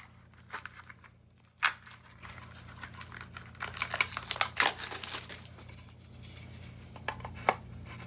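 Gaming chair base parts being handled and fitted together by hand: rustling handling noise with a few sharp clicks, one about two seconds in, a busy stretch of rustling and clicks in the middle, and another click near the end.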